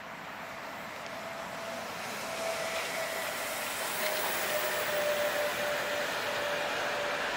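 Electric train approaching along the line, its rolling noise growing steadily louder, with a thin whine that drifts slightly lower in pitch.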